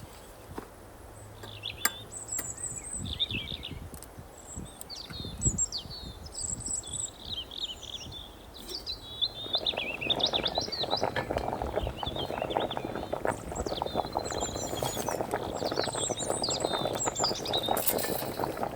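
Small birds chirping and trilling in quick, repeated phrases. About halfway through, a louder, dense patter of rapid small ticks and rustles joins in and continues under the birdsong.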